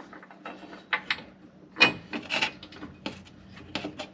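Irregular metal clicks and scrapes of a bolt and hand being worked against the steel bed-step mounting bracket under the truck, with a louder cluster of knocks about two seconds in.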